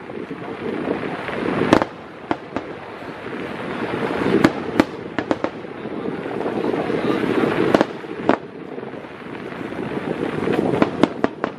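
Aerial fireworks shells bursting with sharp bangs at irregular intervals, about a dozen in all, over a steady rushing noise.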